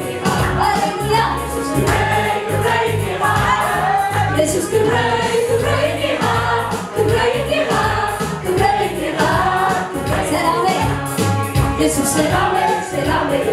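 A woman leading a mixed choir in a gospel worship song, the choir singing with her over amplified instrumental accompaniment with a steady beat.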